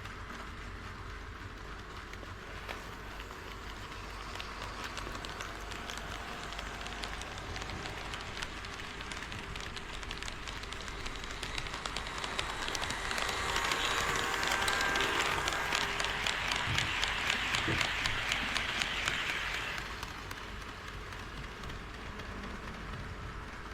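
HO scale model train running on KATO Unitrack, a steady run of fine clicks from the wheels over the rail joints. It grows louder through the middle as the train passes close and drops back near the end.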